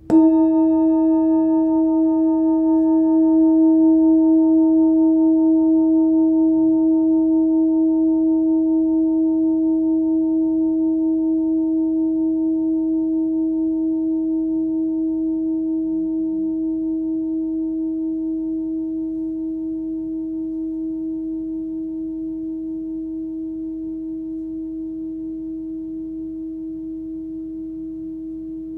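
Hand-forged Full Moon singing bowl, 14.3 cm across, struck once: a sudden onset and then a long ringing tone at about 320 Hz, between D♯ and E. The highest overtones fade within a few seconds, while the main tone and its two lower overtones die away slowly with a gentle pulse.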